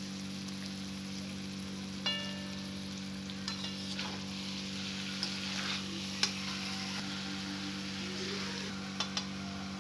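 Chicken and potatoes sizzling in a metal wok at the dry-frying (bhuna) stage, with the liquid nearly cooked off. A spatula stirs them, scraping and knocking against the pan; one knock about two seconds in rings briefly. A steady low hum runs underneath.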